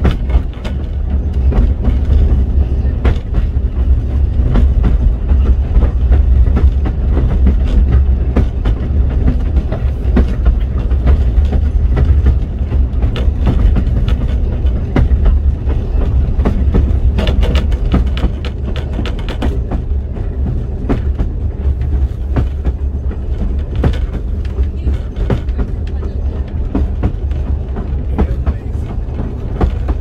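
Steam-hauled narrow-gauge train running, heard from a carriage: a steady heavy rumble with rapid clicks and clatter of the wheels over the rail joints, easing off slightly after the middle.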